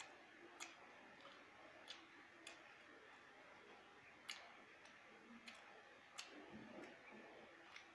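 Near silence, with faint, irregular wet clicks of a person's mouth chewing food, about seven in all.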